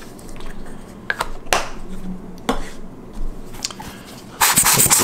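A few light taps and clicks of handling the open camera body, then about four seconds in a loud, rough rushing of air blown into the light-seal channels to speed the evaporation of the isopropyl alcohol.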